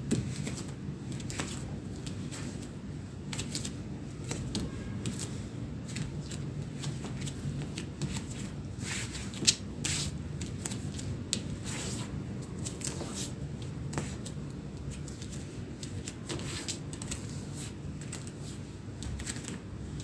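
Bare feet stepping softly on a parquet floor in a slow walk, with the light swish of denim jeans rubbing at each step. The steps come as irregular soft pats and scuffs, with one sharper tap about nine and a half seconds in.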